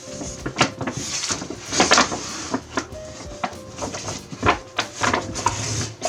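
Packaging and device being handled: a run of irregular clicks, taps and short rustles of cardboard and plastic, with the loudest rustle about two seconds in.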